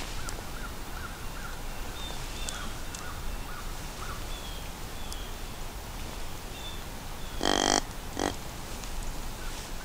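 A crow cawing twice: one long harsh caw, then a shorter one just after, over faint, high, scattered chirps.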